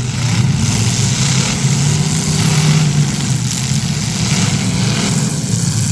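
Several demolition derby cars' engines running hard, a steady loud engine drone under a broad noisy wash.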